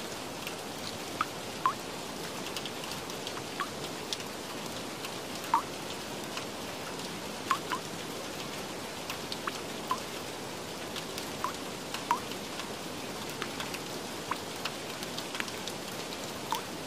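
Steady rain-like hiss with short water-drop plinks scattered irregularly through it, a dozen or more.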